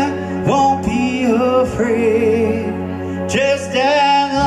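Live band music: a lead vocal holding long, wavering notes over electric keyboard and steady low notes.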